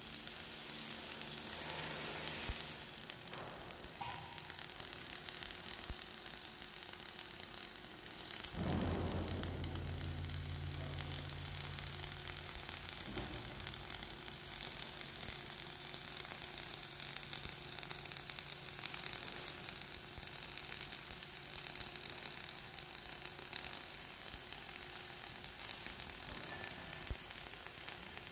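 Flux-cored arc welding on carbon steel plate: the arc crackles and hisses steadily as the bead is laid. About eight seconds in, a louder low hum comes in suddenly and fades out over about four seconds.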